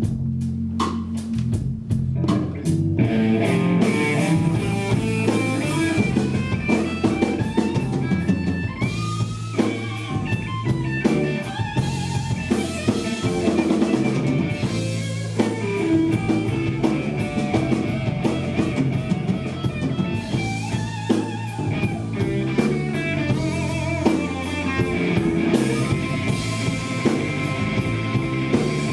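A live blues-rock band plays, with a lead electric guitar over drums and bass. Sparse drum hits and bass notes open the passage, and the full band comes in about three seconds in.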